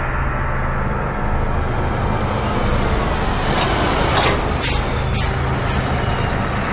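Large motor vehicle engine running steadily, a low hum under a broad rushing noise, with a few short sharp sounds about four to five seconds in.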